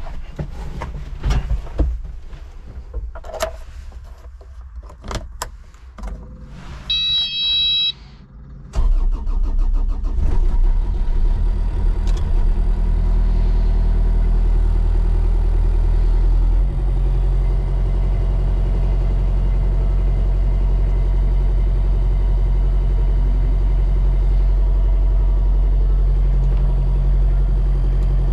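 Knocks and thunks in the cab, then a short electronic beep, before the Kubota KX019-4 mini excavator's small three-cylinder diesel cranks and starts about nine seconds in and settles into a steady idle. About seventeen seconds in, the engine's note shifts.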